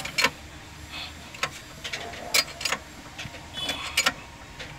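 Irregular sharp metallic clicks and clinks from work at a hydraulic hose crimping machine's die head, over a low steady hum.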